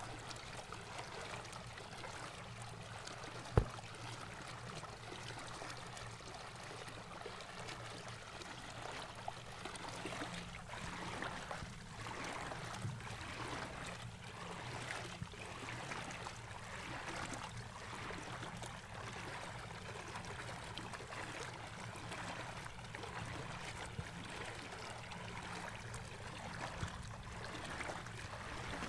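Bow wave splashing and rushing along the metal hull of a small electric boat under way, over a steady low hum. One sharp knock stands out about three and a half seconds in.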